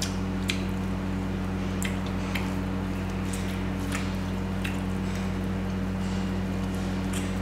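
Close-miked wet chewing and mouth smacks from eating mutton curry with rice: scattered sharp clicks every half second to a second and a half. A steady low hum runs underneath.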